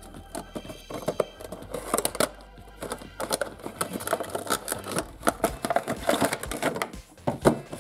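Hands opening a cardboard toy box: the end flap is pulled open and the box handled, making a steady run of rustles, scrapes and small clicks of card and plastic.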